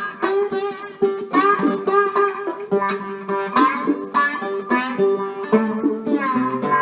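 Three-string cookie-tin guitar playing a fast melody of plucked single notes, many of them sliding up and down in pitch.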